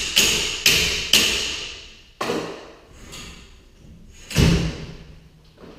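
Metal clanks on a garage door's torsion spring hardware, each with a short ringing tail: a quick run of strikes about half a second apart, then a few more spaced out, the loudest and heaviest about four and a half seconds in with a deep thud under it.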